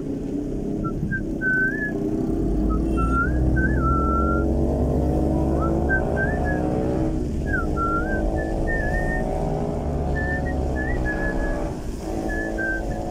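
A person whistling a tune in short, wavering phrases over the car's engine heard inside the cabin. The engine climbs in pitch as it accelerates and drops back twice, about seven and twelve seconds in, like gear changes.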